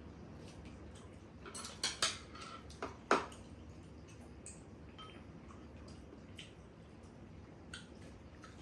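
Eating utensils clinking and tapping against bowls and dishes during a meal: a cluster of clinks in the first half, the sharpest about three seconds in, then a few lighter taps.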